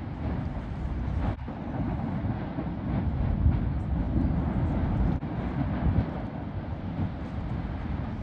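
Lava fountain spattering from an erupting fissure vent: a steady deep rushing rumble that surges unevenly in loudness, loudest about three and a half seconds in.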